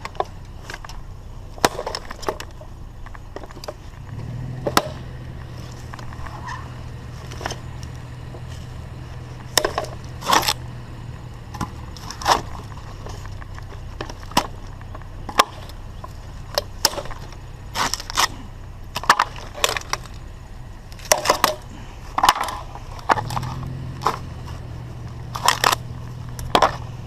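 Scattered knocks, clicks and clattering of discarded electric fans being handled and moved about as scrap.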